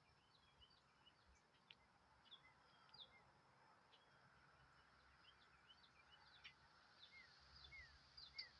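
Faint small birds chirping: many short, high calls scattered irregularly throughout, over a steady low background hiss.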